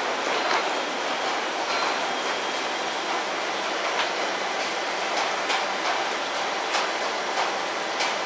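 Steady running noise of a JR Central 311 series electric train standing at the platform with its pantograph up and onboard equipment running. A few faint sharp clicks come about midway and near the end.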